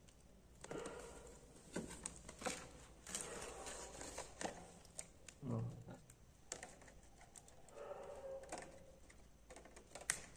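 Faint scratching and irregular sharp clicks of a thin pry tool worked along the seam of a Redmi Note 7 Pro's glued glass back panel as it is pried loose.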